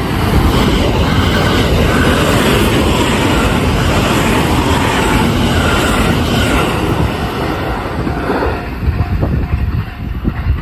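JR 285 series Sunrise Seto sleeper train passing through a station at high speed without stopping: a loud, steady rush of wheels on rail and air as the cars go by. It drops off about eight and a half seconds in as the last car clears.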